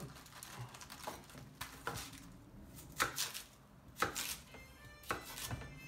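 Kitchen knife cutting lengthwise through napa cabbage on a wooden cutting board: several separate cuts, about a second apart, each a sharp knock of the blade through the leaves onto the board.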